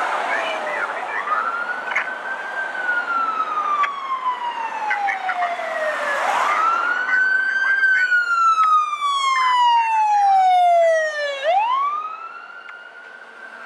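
Electronic sirens of a fire engine and rescue ambulance wailing: a tone that climbs quickly and then falls slowly over about four seconds, three times, over traffic noise. The sweep grows loudest on the second fall, then the level drops sharply near the end.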